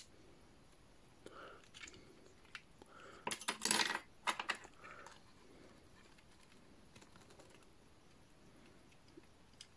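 Plastic toy parts being handled and worked: quiet scattered clicks and taps, with a denser clatter of clicks about three and a half seconds in.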